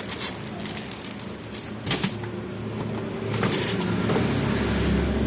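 A few clicks, then a washing machine motor starting up about three seconds in: a low, steady hum that grows louder.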